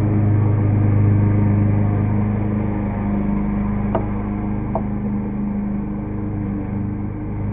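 Lawn mower engine running steadily in the background, dipping slightly in level partway through. Two light clicks about four and five seconds in.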